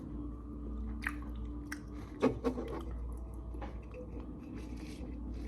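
Close-up chewing and wet mouth sounds of someone eating, with a few sharper smacks about a second in and again around two seconds in.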